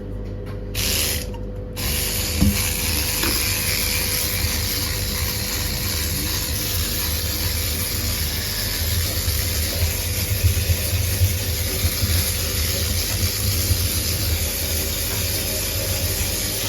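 Washing machine's rubber door seal being scrubbed: a steady scratchy scrubbing with handling rumble, cleaning off mould and scum.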